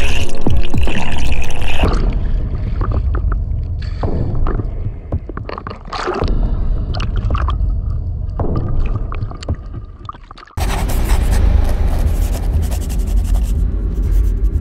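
Soundtrack music drops out about two seconds in, leaving underwater sound: gurgling water with irregular clicks, knocks and scrapes. About ten and a half seconds in, a loud music cue with a deep rumble cuts in suddenly.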